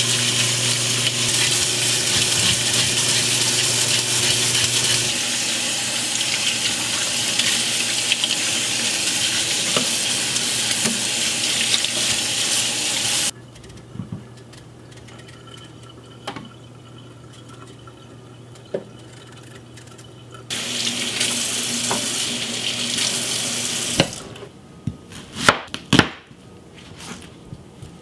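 Kitchen faucet running onto vegetables in a stainless-steel sink as they are rinsed by hand, shut off suddenly about halfway through. Then faint scraping as a potato is peeled with a knife, a few more seconds of running water, and near the end sharp knocks of a knife cutting an onion on a plastic cutting board.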